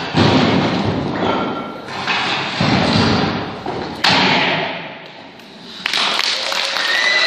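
Karate breaking strikes smashing stacks of tiles: several hard impacts a second or two apart, each with a crash of breaking pieces and ringing hall echo. Applause and cheers start after the last strike near the end.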